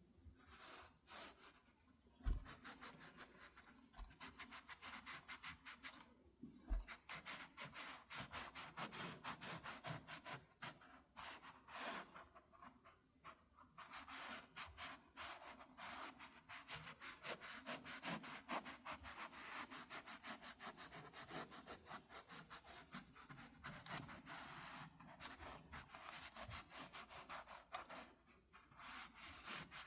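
Hand sewing a quilt: needle and thread drawn through layered fabric in quick running stitches, a run of fast soft scratching strokes with short pauses. Two soft knocks, about two and seven seconds in.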